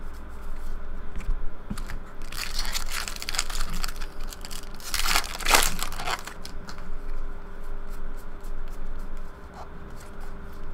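A foil trading-card pack wrapper being torn open and crumpled by hand, in two spells of crackling tearing about two and five seconds in, with scattered light clicks between and after.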